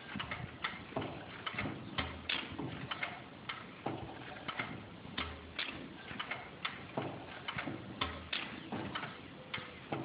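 A 10 HP IHC Mogul single-cylinder engine running slowly. Its valve gear and igniter linkage click steadily, about two clicks a second, and a low thud comes every three seconds or so.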